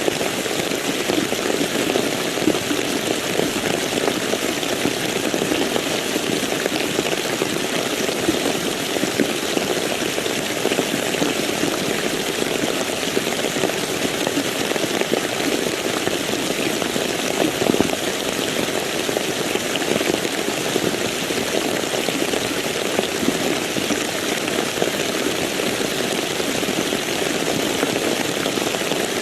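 Steady, heavy rain falling in an even, dense patter with no break.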